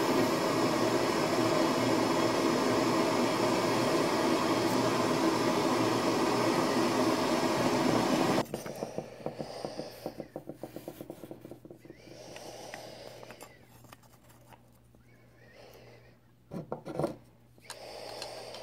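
A steady, loud rushing noise with a few held tones that cuts off suddenly about eight seconds in. It is followed by quieter rubbing and scraping strokes and handling knocks as a deer bone and a wooden handle block are worked by hand on a wooden workbench.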